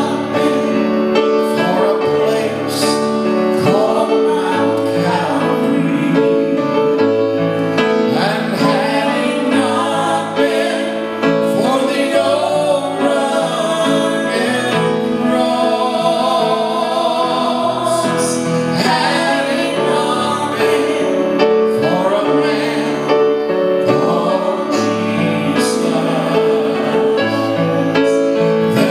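A man and a woman singing a gospel worship song together, with instrumental accompaniment of long held notes.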